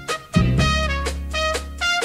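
Background music with brass instruments in a swing style: horn phrases over a sustained bass, with a short break about a third of a second in.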